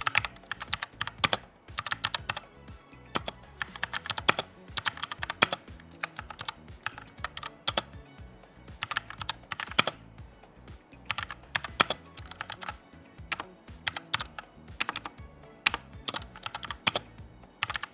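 Typing on a Redragon Dragonborn K630 mechanical keyboard with Otemu Brown switches. The keys clack in quick, uneven runs of keystrokes.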